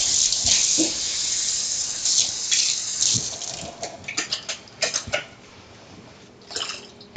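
Water running from a kitchen tap for about four seconds, rinsing out a container. After that come a series of light clicks and knocks.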